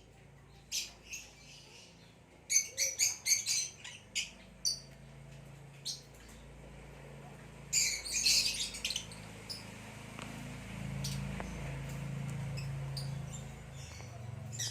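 Nyasa (Lilian's) lovebird chirping: quick clusters of sharp, high chirps, with the densest runs about two and a half seconds in and again near eight seconds. A low steady hum runs beneath and grows louder after about ten seconds.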